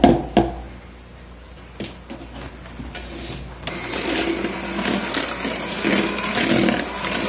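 A couple of sharp knocks of a spoon against the mixing bowl, then, a little over halfway through, an electric hand mixer starts and runs steadily, its beaters whisking cake batter.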